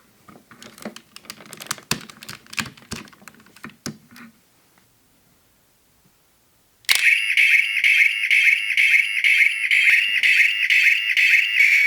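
Plastic clicks and handling of a DX Onbue toy transformation whistle as it is opened and switched on. About seven seconds in, its speaker starts a loud, ear-piercing single-note whistle sound effect with a fast regular pulse.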